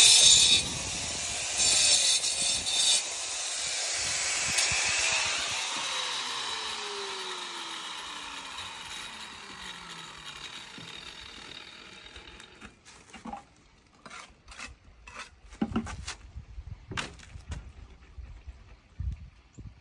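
Power saw cutting stone in two short, loud bursts, then switched off, its blade winding down with a slowly falling whine that fades out over several seconds. A few sharp knocks follow in the second half.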